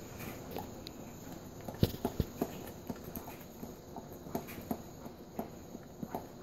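Dog licking and smacking its lips on a mouthful of sticky peanut butter: irregular wet clicks and smacks, with a few louder ones about two seconds in.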